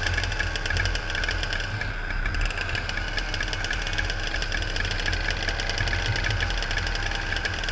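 Two-stroke racing kart engine running steadily at low speed near idle, heard close up from the kart itself, with a fast, even firing buzz and a low rumble.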